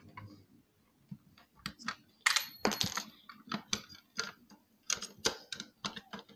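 Irregular clicks and taps of small hard objects being handled, with a brief scraping rustle about two to three seconds in.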